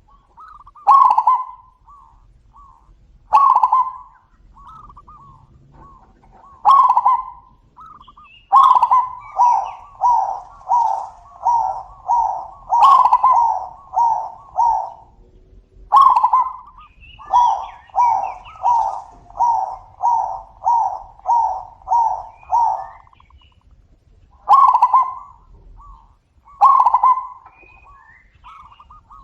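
Zebra doves (perkutut) cooing back and forth. Single loud coos come every few seconds, with two long runs of quick staccato coos at about two a second in the middle.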